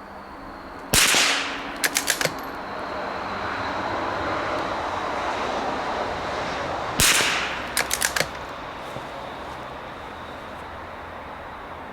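Two shots from a Savage Mark II .22 LR bolt-action rifle firing CCI standard-velocity rounds, about six seconds apart. Each shot is followed within a second by a quick run of four clicks as the bolt is worked to eject the case and chamber the next round.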